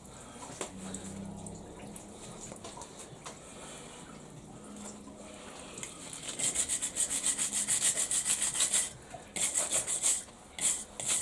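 Fast back-and-forth hand rubbing or scrubbing on a metal lathe soft jaw, about eight strokes a second, in three bursts starting a little past halfway, cleaning the sticky coolant off the jaw. Before that, only faint handling sounds.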